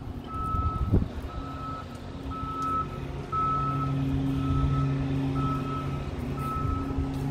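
A vehicle's reversing alarm beeping steadily, about one beep a second, with the vehicle's engine running as a low hum underneath.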